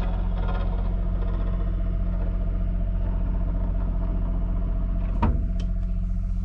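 Motorhome's powered entry step cover sliding back under its electric motor to uncover the steps, over the steady hum of the onboard generator. A sharp click comes about five seconds in.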